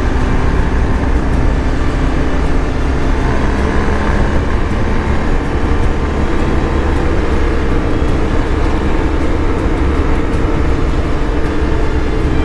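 BMW R 1250 GS Adventure motorcycle's boxer-twin engine running at a steady cruise, with wind and road rush, at an even loudness throughout.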